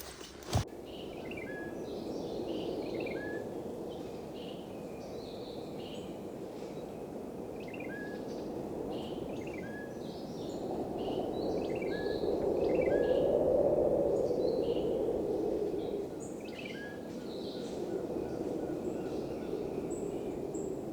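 Forest birds calling over and over in short rising chirps with higher notes between them, over a steady rushing background noise that swells about halfway through and then eases. A single sharp knock sounds just after the start.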